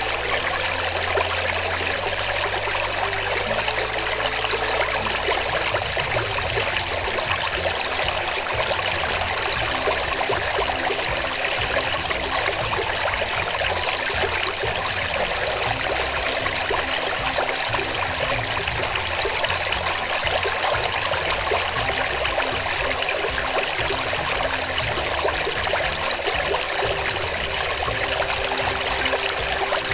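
Steady running water, like a trickling stream, at an even level without pauses.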